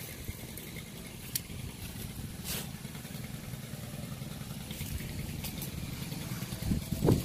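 Stihl FS 91 R two-stroke string trimmer idling with a low, steady hum. There is a brief thump near the end.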